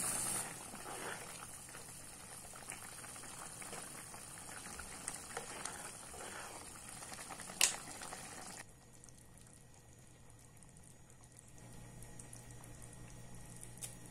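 Tomato gravy boiling in a pan, bubbling and popping. About seven and a half seconds in there is one sharp click, and a second later the bubbling drops suddenly quieter.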